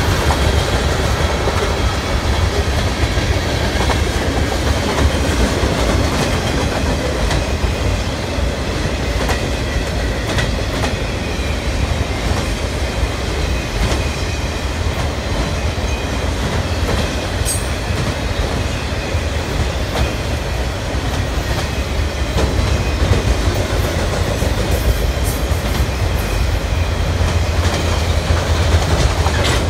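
Freight train cars, autoracks and a tank car, rolling past close by: a steady, loud, low rumble with wheels clicking over rail joints.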